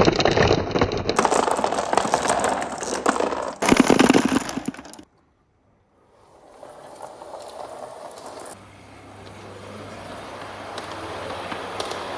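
Marbles rolling and clattering fast along a marble run track, in several abruptly cut takes; after about a second of silence a quieter, steady rolling rumble fades in and grows louder, with a low hum joining in partway.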